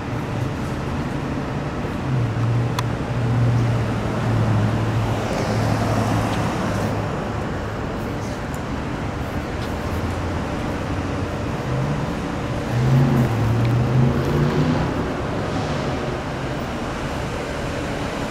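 Motor vehicle traffic: steady road noise with a low engine hum that swells twice, a couple of seconds in and again about two-thirds of the way through.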